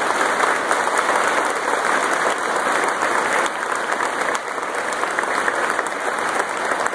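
A large audience applauding: dense, steady clapping from hundreds of people, easing a little in the second half.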